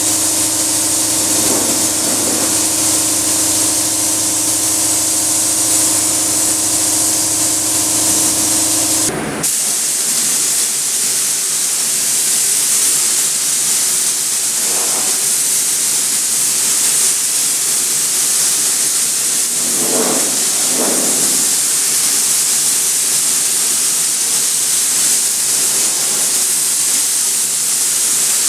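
Paint spray gun with a large fluid tip hissing steadily as it sprays thick polyester primer. A low steady hum runs under it for about the first nine seconds and stops suddenly.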